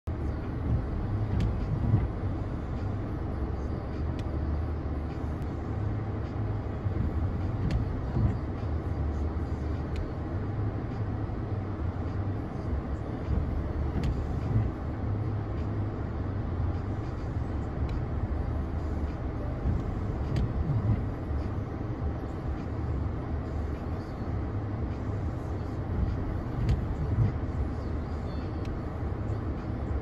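Car driving at highway speed: a steady low rumble of road and engine noise, swelling and easing slowly, with a few faint clicks.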